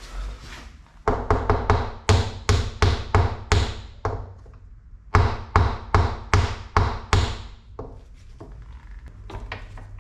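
Repeated sharp blows like a hammer striking a part, in two runs of about ten strikes each, roughly four a second, with a pause of about a second and a half between them.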